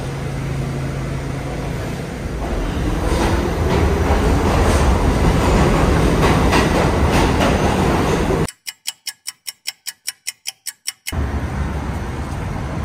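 New York City subway train running, a loud dense rumble with rattling clicks, growing louder a few seconds in. Near the end it breaks into a rapid stutter of short, evenly spaced pulses, about six a second, for a couple of seconds before the noise returns.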